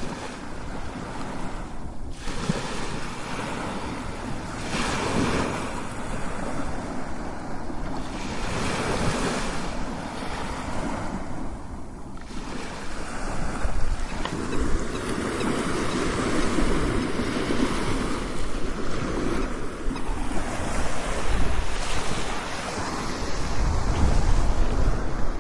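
Strong ocean waves crashing: a continuous wash of surf that swells and eases every few seconds.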